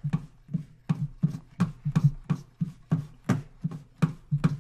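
Rapid, irregular clicking of a computer mouse, about four clicks a second, as a numeric value is stepped up.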